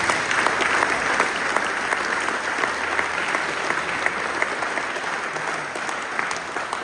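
Crowd applauding: many people clapping, loud at first and gradually dying down.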